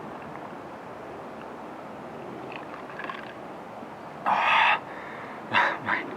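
A bird calling three times: one longer call about four seconds in, then two short calls in quick succession near the end, over a steady background noise.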